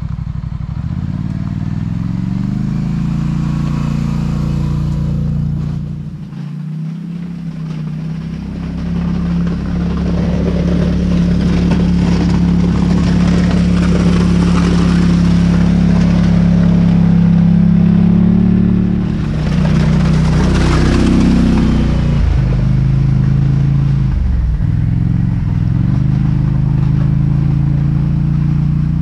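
Polaris Sportsman 850 ATV's parallel-twin engine running and revving as it drives with a front snow plow, the pitch rising and falling with the throttle. Over the middle part the plow blade scrapes and pushes snow over the gravel, adding a rough hiss over the engine.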